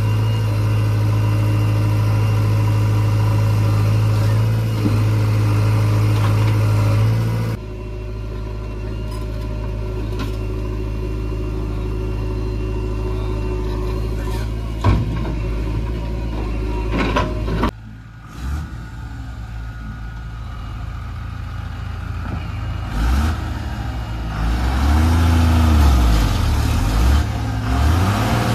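Heavy diesel engines running steadily: a JCB 3DX backhoe loader at work, then a Tata tipper truck driving through deep red mud, its engine revving up and down unevenly near the end.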